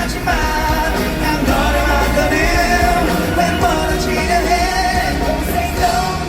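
Live pop-rock band playing with a sung lead vocal, amplified through the PA in a large hall.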